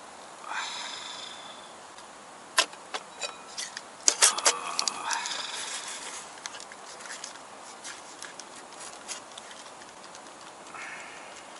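Metal camp cookware being handled: a run of sharp clinks and knocks, a crinkly rustle of a coffee packet around the middle, then a spoon clinking lightly in a metal mug as coffee is stirred.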